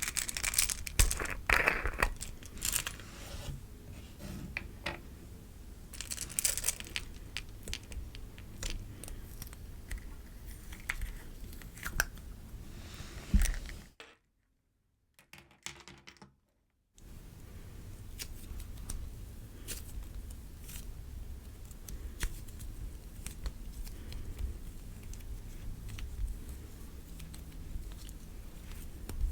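Butter slime worked by hand, squished, pressed and pulled, giving a run of soft sticky crackles and clicks. The clicks are busiest in the first few seconds. There is a break of total silence about halfway.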